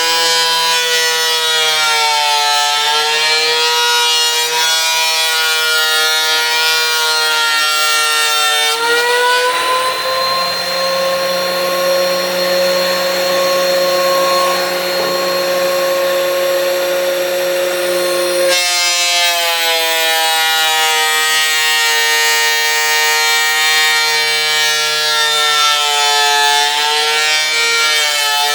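DeWalt electric planer running loud with a steady motor whine. Its pitch wobbles and sags for the first nine seconds and again from about 18 seconds on, as a board feeds through it. In between it holds steady and slightly higher.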